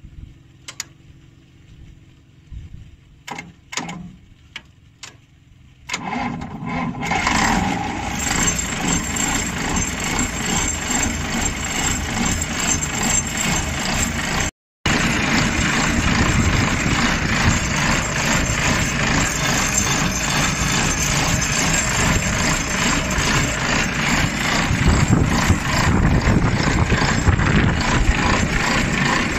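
A few light clicks, then a Volvo Penta diesel engine starts about six seconds in and keeps running steadily.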